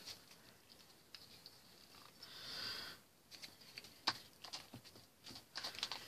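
Faint scuffling and rustling of a kitten moving about on newspaper at the mouth of a plastic pet carrier, with scattered light clicks and taps that come more often in the second half.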